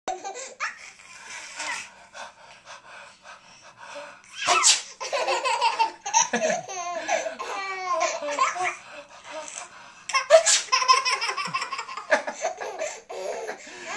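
Two sneezes, about 4.5 and 10.5 seconds in, each set off by a young child's hearty laughter that runs on for a few seconds after it.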